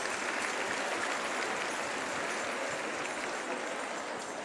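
Large hall audience applauding, a dense steady clatter of many hands that gradually thins out in the second half.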